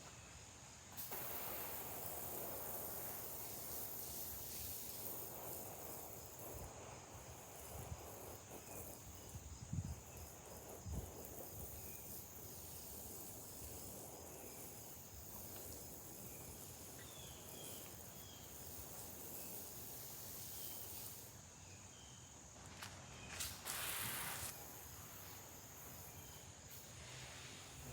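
Faint outdoor ambience: a steady high insect trill under a soft even hiss, with a couple of low thumps about ten seconds in and a brief louder hiss a few seconds before the end.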